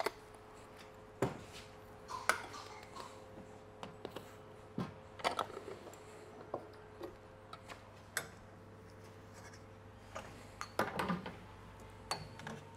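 Scattered metal clinks and knocks of espresso tools being handled: dosing cup, portafilter and tamper. A cluster of knocks about eleven seconds in as the portafilter is locked into the group head of a La Marzocco espresso machine, all over a low steady hum.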